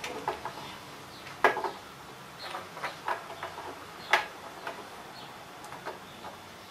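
Scattered metal clicks and clinks of a wrench and clamping hardware as a casting is tightened down in a jig on a milling machine table, with two sharper clanks about one and a half and four seconds in.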